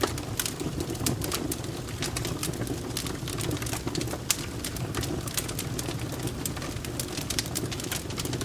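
Domestic cat purring in a steady, fluttering low rumble, with a wood fire crackling over it in frequent sharp pops and snaps.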